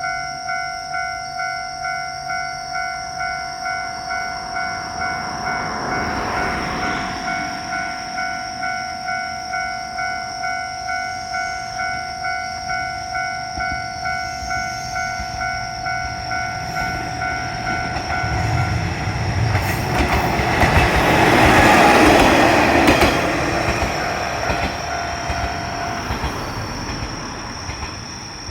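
Japanese level-crossing warning bell ringing in a steady, even rhythm while a diesel train approaches and passes over the crossing, loudest about twenty seconds in, with its engine and the clicks of its wheels over the rail joints. The bell rings on briefly after the train and stops near the end as the train draws away.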